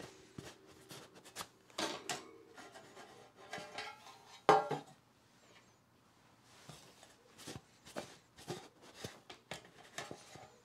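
Metal loaf pans and a wire cooling rack knocking and clinking against the countertop as baked loaves are turned out of the pans. The sound is scattered light knocks and scrapes, with the loudest knock about four and a half seconds in.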